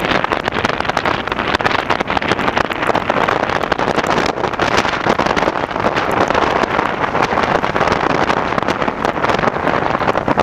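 Wind buffeting the camera's microphone at motorway speed: a loud, steady rushing noise full of rapid flutters, over the road noise of a vehicle in traffic on a wet road.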